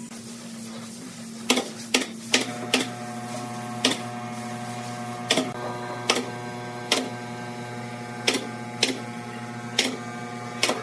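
Pneumatic brad nailer firing nails into a wooden tabletop: about a dozen sharp shots at uneven intervals. A steady mechanical hum comes in about two seconds in.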